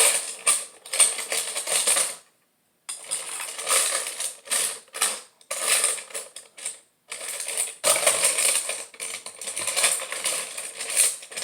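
Plastic Lego bricks clattering and clicking as they are handled and sorted through, in several spells of rapid rattling broken by two short pauses.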